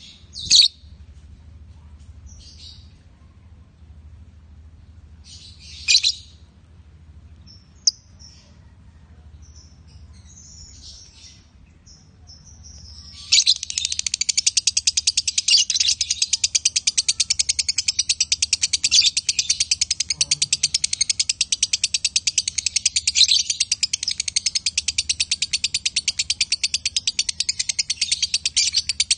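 Lovebird giving a few scattered short chirps, then about 13 seconds in breaking into a long, continuous, rapid chattering trill that does not let up: the sustained 'konslet' song that lovebird keepers prize.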